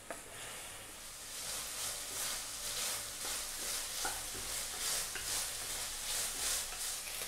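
Beef strips sizzling in a wok as the last of the vegetable stock cooks off, stirred steadily with a wooden spatula. The sizzle grows louder about a second in, with regular swishes of the stirring strokes a few times a second.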